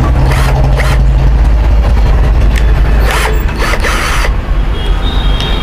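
Keyless chuck of a 21 V cordless drill/driver being tightened onto a flexible shaft extension: repeated mechanical ratchet clicking and rattling, with handling rumble.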